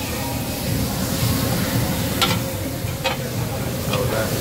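Food sizzling on a tabletop Korean barbecue grill, a steady hiss, with a few light clicks of utensils about two, three and four seconds in.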